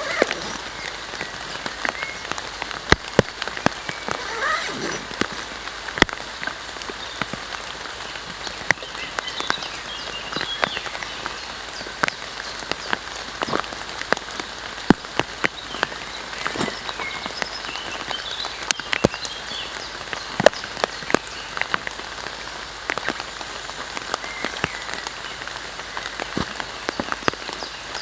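Heavy rain falling: a steady hiss with many sharp, irregular drop hits.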